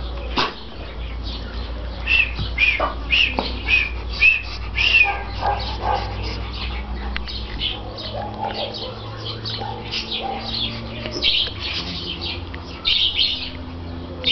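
Small birds chirping: many short, high chirps repeated in quick succession, growing denser in the second half.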